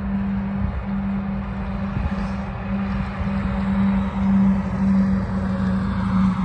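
Kockum Sonics Delta 4 electronic siren, still driven by its original grey Delta controller, sounding its alarm test with a rough, harsh tone; the pitch rises toward the end. Heavy wind buffets the microphone throughout.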